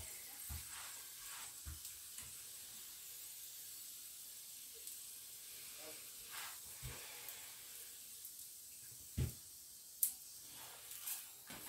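Buttered flatbread cooking in a hot nonstick griddle pan, with a faint steady sizzle. A few soft knocks come as the bread and pan are handled, with a sharper click about ten seconds in.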